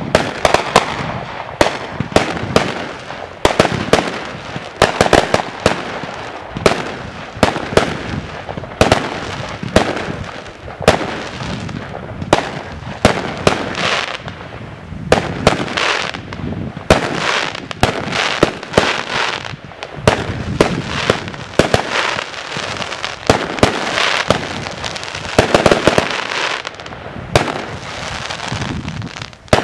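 Aerial fireworks going off in a steady barrage: sharp bangs at about two a second, with a rushing hiss between them.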